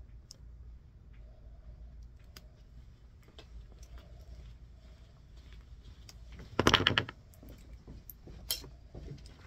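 Hand-tool handling while trimming the wire pairs of a shielded Cat 6 cable: scattered small clicks and snips from wire cutters. About two-thirds of the way in comes a louder clatter lasting about half a second, then one more sharp click near the end.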